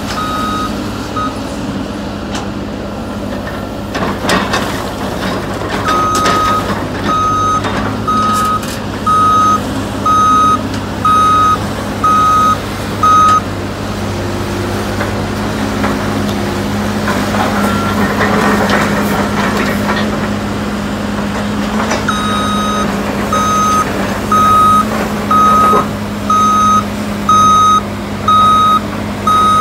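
Heavy truck's backup alarm beeping about once a second over a steady diesel engine. The alarm sounds in two spells, from about six seconds in and again from about twenty-two seconds. A few knocks come around four to six seconds in.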